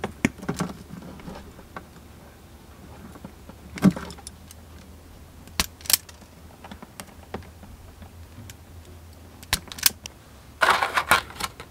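Automatic wire stripper at work on stereo wiring: a handful of sharp, scattered snaps and clicks as its jaws grip and strip the wire ends. Near the end comes a short dense rattling jangle of small hard parts.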